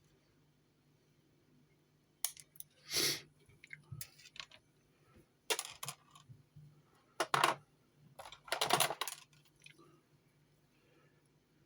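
Hand tools and solid-core wire being worked at a bench: irregular clusters of short clicks and brief scrapes from about two seconds in, with a pause now and then, ending shortly before the close.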